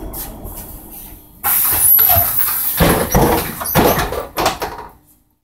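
Ikarus 412 trolleybus coming to a stop, its running noise dying away. About a second and a half in, a sudden hiss of compressed air comes as the pneumatic doors open, followed by several clunks. The sound cuts off suddenly near the end.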